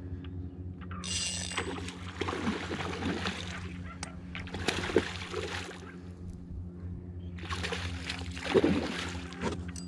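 Hooked chum salmon thrashing at the surface beside the boat, splashing in three bouts, over a steady low hum.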